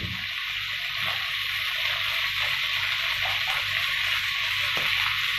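Cauliflower pepper fry sizzling steadily in a frying pan, dry-frying after its cooking water has boiled away, with a couple of faint taps.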